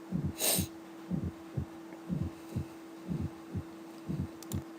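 Recorded heart sounds played for auscultation teaching: low thuds in pairs about once a second, the first and second heart sounds, with a fourth heart sound (S4, atrial gallop) just before the first sound. A steady hum runs underneath, and there is a short hiss about half a second in.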